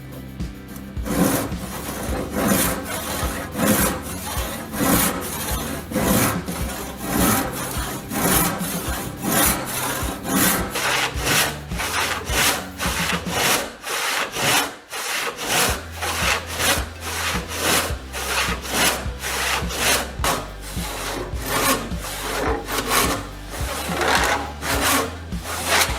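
Hand saw cutting wood in steady back-and-forth strokes, about two a second.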